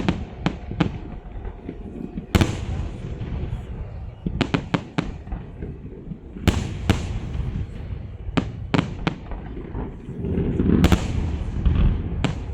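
Fireworks salute going off: a string of sharp bangs, several in quick clusters, with a rolling rumble between them.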